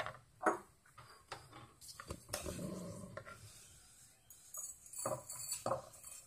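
Wooden spatula knocking and scraping on a frying pan as dry roasted vermicelli and cashews are tipped and pushed out into a glass bowl: scattered knocks, a short rustle of pouring about halfway through, and several knocks near the end.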